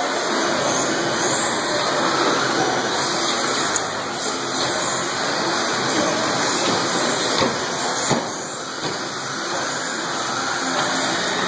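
Electric 1/10-scale RC stadium trucks racing on an indoor track: a steady rush of motors and tyres with faint rising and falling motor whines, and two sharp knocks in the second half.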